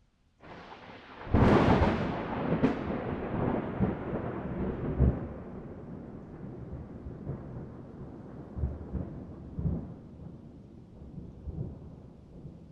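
A nearby thunderclap: a sharp crack about a second in, a second crack just after, then a long rolling rumble that slowly dies away, swelling now and then.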